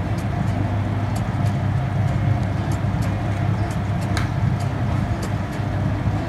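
Pork cooking in a creamy sauce in a frying pan, with scattered pops and crackles from the pan over a steady low rumble.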